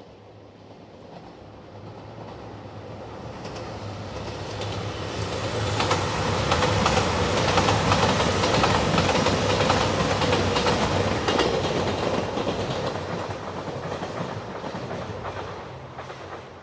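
JR Shikoku 2700 series diesel limited express passing at speed, with diesel engine noise and wheels clicking over rail joints. It builds up, is loudest about halfway through, then fades as the train draws away.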